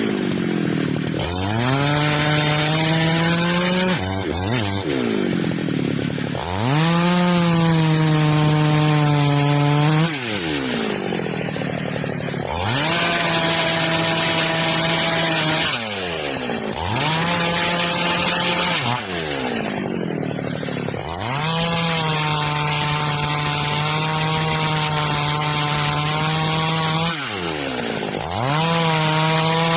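Chainsaw running in a series of about six cuts into wood. Each time the engine is throttled up to a steady high pitch and held through the cut, then released so the pitch falls back toward idle before the next cut.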